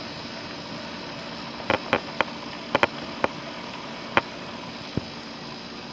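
Ceramic pet water fountain running: a steady hiss of flowing water and pump, broken by about eight irregular plops of falling water, bunched in the middle.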